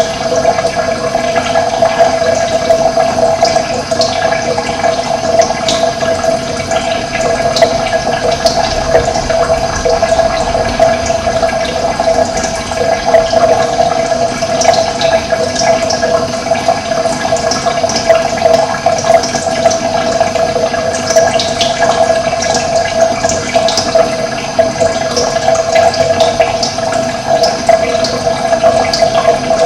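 Running water flowing steadily, with brief high bird chirps scattered over it.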